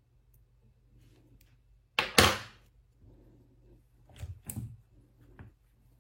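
Small tools or phone parts being handled on a repair bench. There is one sharp knock about two seconds in, then two lighter knocks about two seconds later and a faint click near the end.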